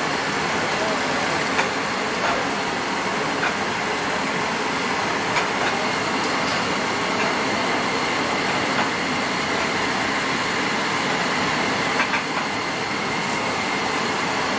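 Steady rushing of gas flames at a döner grill, with scattered small crackles and pops of hot fat.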